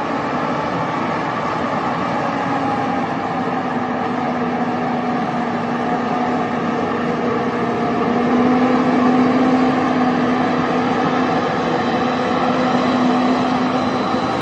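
A vehicle engine running steadily with a humming tone that drifts slightly in pitch, a little louder about halfway through.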